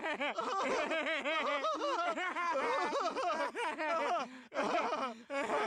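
Two cartoon voices laughing together in repeated bursts, one low and chuckling, one higher, with short breaks about four and a half and five seconds in.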